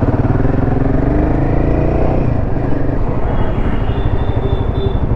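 Royal Enfield Himalayan 450's single-cylinder engine running on the move, its pitch rising for about two seconds and then dropping as the throttle eases.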